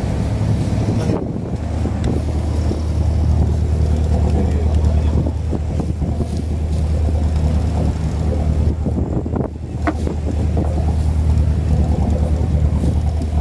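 Fishing boat's engine running with a steady low drone, with wind on the microphone.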